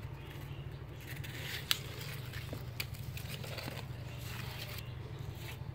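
Leaves and a plastic pot being handled, giving soft rustling and scattered clicks, the sharpest a little under two seconds in, over a steady low hum.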